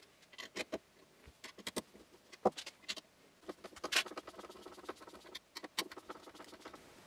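Screws being driven by hand into a red 3D-printed plastic bracket: faint, irregular clicks and short scrapes of a small metal tool on the screw heads and plastic, with a couple of sharper metallic ticks about two and a half and four seconds in.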